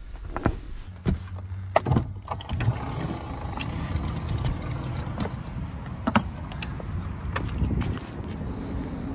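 Power sliding door of a 2011 Chrysler Town & Country minivan opening: a few clicks in the first two seconds as the button is pressed and the latch lets go, then the door motor running steadily as the door slides open.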